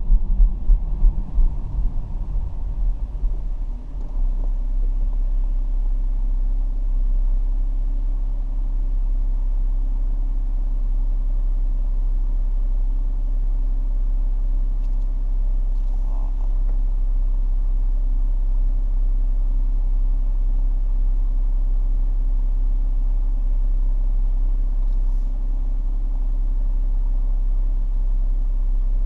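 Car driving, heard from inside the cabin: uneven, louder low rumbling for the first few seconds, then a steady low engine and road drone with a constant hum.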